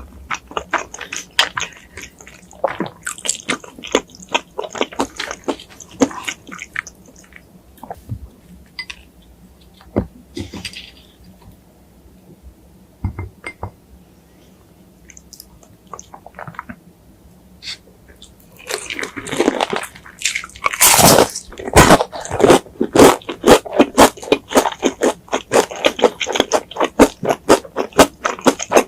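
Close-miked mouth sounds of eating Jollibee fast food: wet chewing and crunching. Sparse and fairly quiet through the first half, then about two-thirds in it turns loud and fast, a steady run of about three chews a second.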